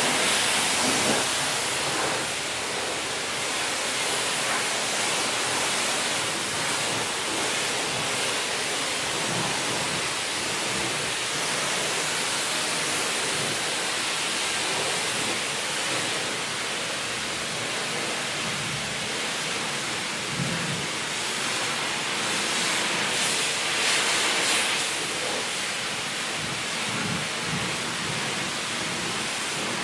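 High-pressure rinse wand at a self-service car wash spraying water onto a car: a steady, even spray of water spattering on the bodywork. It grows briefly louder and brighter about 23 seconds in.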